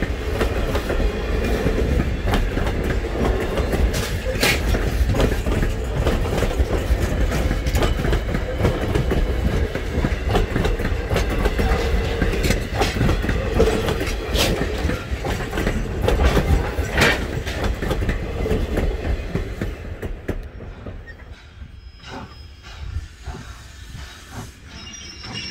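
Passenger train rolling past, its wheels clicking and clacking over the rail joints. The sound dies down about 20 seconds in.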